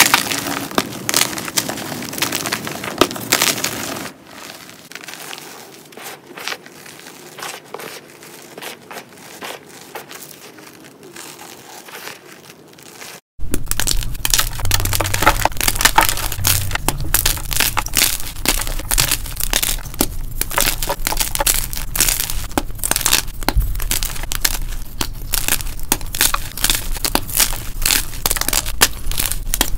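Hands crushing and crumbling blocks of gym chalk: a rapid, dense run of dry crunches and crumbles. The crunching drops quieter about four seconds in and jumps back to full loudness after a sudden break about thirteen seconds in.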